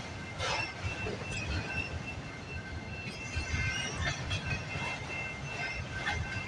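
Freight train of autorack cars rolling past: a steady low rumble of wheels on rail, with a faint high, steady wheel squeal and a few irregular clicks and clanks from the wheels and couplers.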